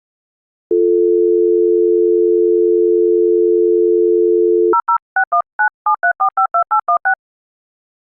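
UK landline dial tone, a steady low two-note hum, starting just under a second in and lasting about four seconds. It is cut off by a rapid string of about a dozen short DTMF touch-tone beeps as the international number is dialled.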